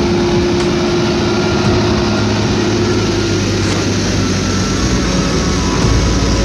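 Diesel engines of an SDLG wheel loader close by and a Mitsubishi truck stuck in mud running loud and steady, a dense low drone with a higher tone that drops out about three and a half seconds in.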